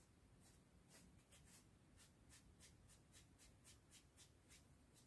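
Faint, quick strokes of a kitchen sponge brushing silver paint across a latex-coated foam sword blade, about three to four strokes a second.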